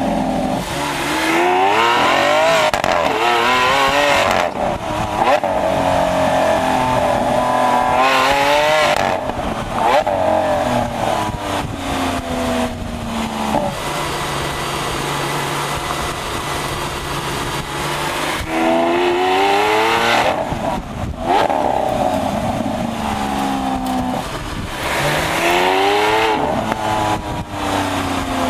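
Lamborghini Aventador Roadster's 6.5-litre naturally aspirated V12 pulling hard through the gears, revs climbing and dropping sharply at each upshift. It settles to a steady cruise midway, then climbs again several times. Heard from an open cockpit with the roof off.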